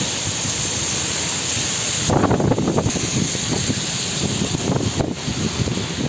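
Heavy rain pouring down in a steady hiss, with wind buffeting the microphone. The sound changes abruptly about two seconds in, from a bright hiss to a lower, gustier rush.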